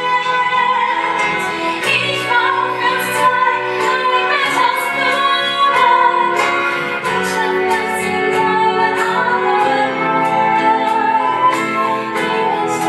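Musical-theatre duet sung live over instrumental accompaniment, with a woman's singing voice to the fore.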